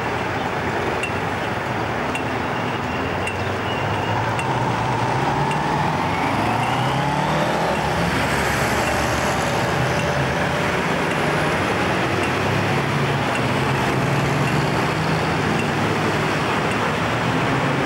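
Road traffic at a junction: a steady wash of car engines and tyre noise, with one vehicle's engine rising in pitch as it pulls away partway through.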